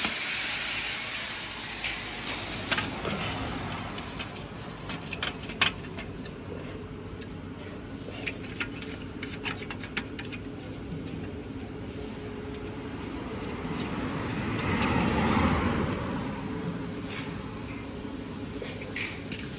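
A steady engine hum runs throughout and swells about 15 s in, as if a motor vehicle is passing. A few sharp metallic clicks and taps are scattered through it.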